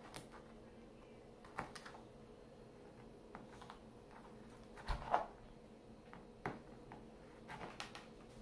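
Plastic child's knife chopping radishes on a plastic cutting board: faint, irregular taps and knocks as the blade hits the board, with a louder double knock about five seconds in.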